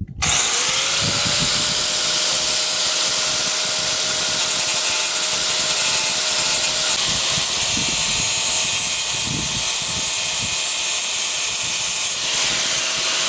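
Angle grinder spinning up about the start and grinding the rivet heads off a steel motorcycle drive chain link to break the chain. A steady high whine runs over the grinding noise, easing slightly near the end.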